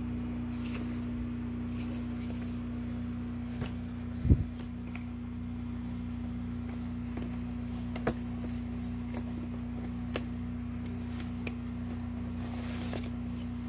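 Handling of a plastic VHS cassette and its paper insert: a few light clicks and taps, and one louder thump about four seconds in, over a steady low hum.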